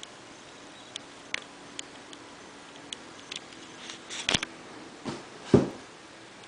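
A cardboard sneaker box being handled: a string of light clicks and taps, a quick cluster of louder ones about four seconds in, then two thumps a little after five seconds, the second the loudest.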